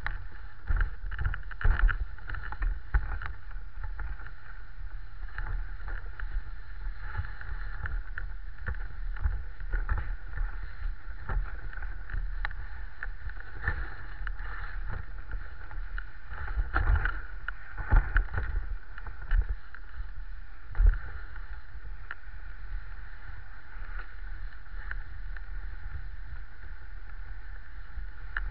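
Dog sled gliding over a packed snow trail: the runners hiss and rumble steadily, with sharp knocks and bumps from the sled now and then, several coming close together near the start and again past the middle.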